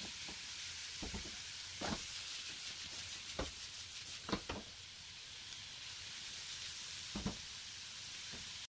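Chicken pieces sizzling in oil in a nonstick frying pan, a steady hiss broken by about six short knocks as the chicken is stirred with a spatula and the pan tossed on the stove. The sound cuts off suddenly near the end.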